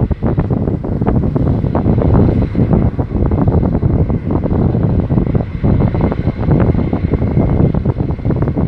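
Wind buffeting the microphone: a loud, uneven, fluttering rumble, with a faint steady high tone beneath it.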